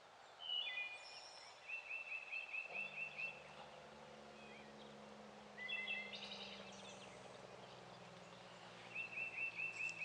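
A songbird singing two phrases. Each opens with a short varied figure and runs into a quick series of about eight repeated high chirps, one phrase near the start and one near the end.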